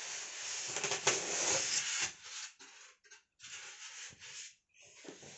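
TV packaging being handled: cardboard, foam or plastic rubbing and scraping, a continuous rub for about two seconds, then shorter rustles with brief gaps.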